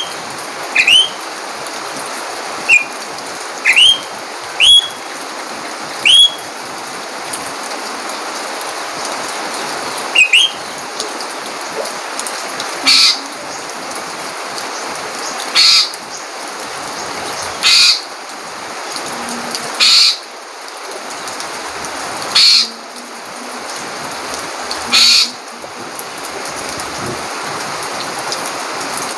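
Heavy rain falling with a steady hiss, while a bird calls loudly over it: sharp rising chirps several times in the first ten seconds, then a harsher call repeated every two to three seconds.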